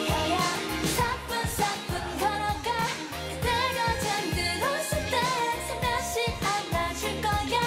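K-pop dance song with a steady beat and female group vocals singing.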